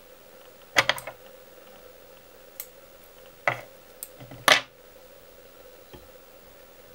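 Sharp clicks and light taps of fly-tying tools and materials being handled at the vise: a quick cluster about a second in, then single taps, with the loudest around three and a half and four and a half seconds, over a faint steady hum.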